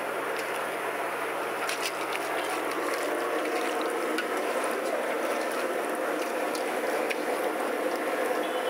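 Wet clicking and squelching of fish strips being mixed by hand with egg in a steel bowl, thickest about two seconds in, over a steady rushing noise.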